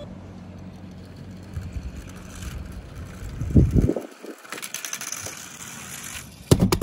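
Toy minicars running on a hard surface: steady rolling noise with a low hum. There are loud clattering knocks about three and a half seconds in and again near the end.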